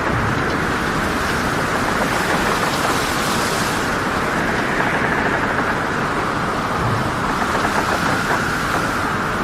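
Storm at sea: a dense, steady rush of wind and waves that swells and eases, turning hissier for a second or two about a third of the way in.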